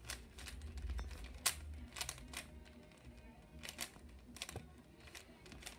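Rubik's Cube being turned quickly by hand, its layers giving irregular sharp clicks and snaps, some bunched together, over faint background music.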